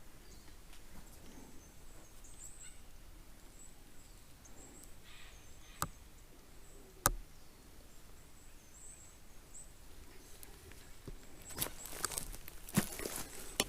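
Quiet forest ambience with faint, high-pitched bird chirps, two sharp clicks about six and seven seconds in, then footsteps crunching on the trail near the end.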